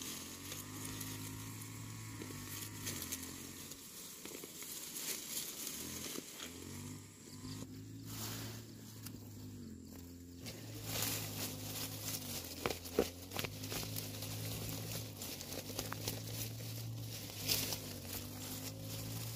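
Peanut plants being pulled up by hand: leaves and stems rustling, with soil crackling and pattering off the roots in scattered clicks. A steady low hum runs underneath.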